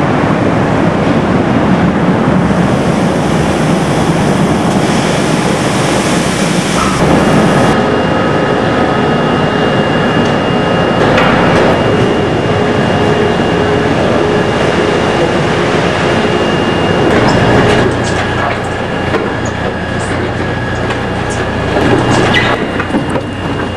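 Concrete batch plant machinery running: aggregate conveyors and hopper equipment make a loud, steady rumbling din with a few steady tones over it. The mix of the noise shifts a couple of times.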